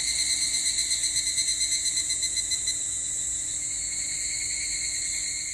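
Insects buzzing in a loud, shrill, high-pitched chorus. It pulses rapidly for the first half and then settles into a steady drone.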